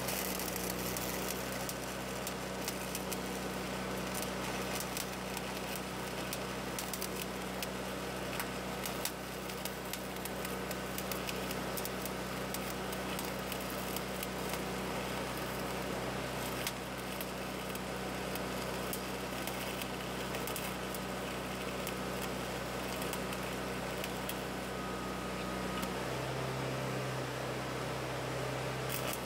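Welding arc crackling and hissing steadily over the hum of an engine-driven welder held at weld speed. About 26 seconds in, the arc stops and the welder's engine note drops to a lower idle.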